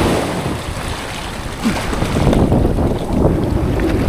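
Wind buffeting the microphone in heavy, uneven gusts over small waves washing and splashing against shoreline rocks.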